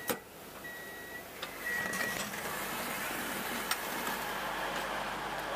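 Three short high electronic beeps, about half a second each and roughly one a second, with a sharp knock right at the start; about two seconds in a steady rushing noise comes up and holds.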